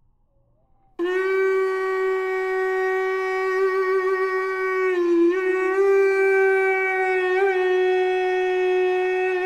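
A traditional Māori wind instrument (taonga pūoro) enters about a second in and sounds one long held note, rich in overtones, with a brief dip in pitch about halfway through.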